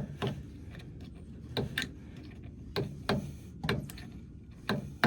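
Hand tool clicking against the new cotter pin on a snowblower wheel axle as its ends are bent and clipped: about nine sharp clicks, mostly in pairs about a second apart.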